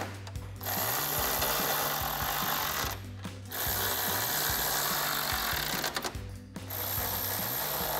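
Cordless electric ratchet with a 10 mm socket running in three bursts of about two seconds each, driving bolts down tight, over background music.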